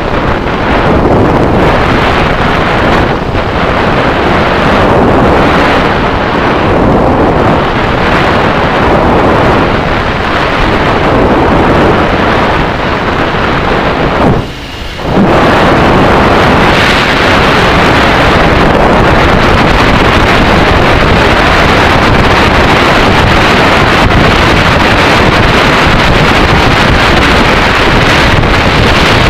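Loud, steady wind rush on the microphone of a camera riding on a motorcycle at road speed. It drops away briefly about halfway through.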